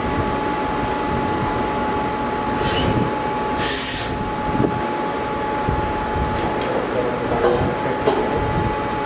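CNC lathe running with a steady mechanical hum and a constant whine. A short hiss comes about three and a half seconds in, and a few light clicks follow near the end.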